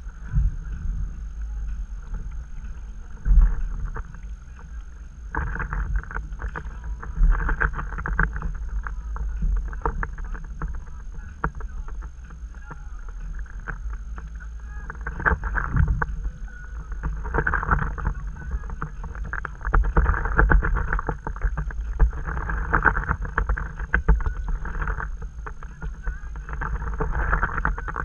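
Stand-up paddleboard being paddled: the paddle blade splashes through the water about every two to two and a half seconds, over a steady low rumble.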